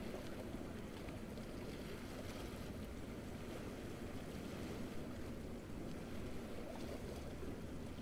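Small waves lapping on a beach: a steady, low wash of water noise.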